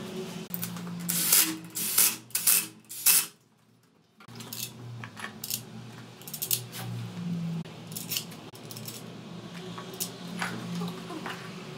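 Irregular light metallic clinks and rattles as transmission parts and the aluminium case are handled, over a steady low hum. The sound cuts out briefly about three seconds in, then the clinks resume more sparsely.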